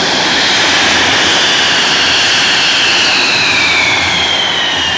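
Loud jet aircraft engine noise, a steady roar with a high whine that slides steadily down in pitch.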